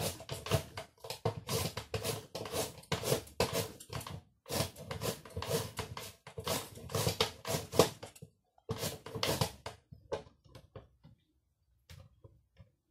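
A carrot being shredded on the julienne blade of a plastic mandoline slicer: repeated scraping strokes, about two to three a second. They pause about eight seconds in, come back briefly, and give way to a few light clicks near the end.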